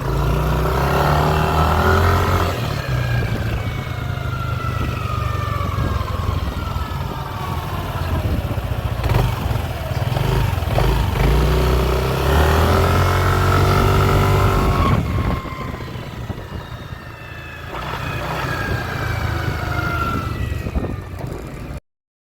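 Yamaha NMAX 155 scooter being ridden, its engine running with a whining tone from the rear gear that falls in pitch each time the bike slows off the throttle, three times over. The whine comes from the final-drive gears toward the rear wheel, the noise fault under test. The sound cuts off suddenly near the end.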